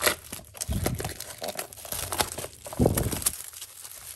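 Cardboard trading-card blaster box being opened and the cellophane-wrapped card packs inside crinkling as they are pulled out, with irregular crackling and two dull thumps from handling, about a second in and near three seconds.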